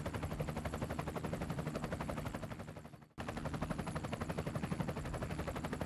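Faint, fast and even pulsing of a helicopter's rotor and engine under the radio audio, briefly dropping out about three seconds in.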